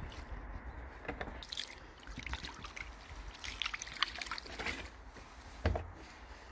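Water trickling and splashing over a wet polished granite gravestone as a hand wipes the stone, with scattered short wet scraping sounds and a dull thump near the end.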